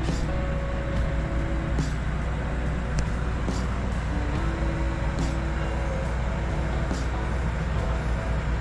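Steady low drone of a large diesel engine running, with background music of held notes.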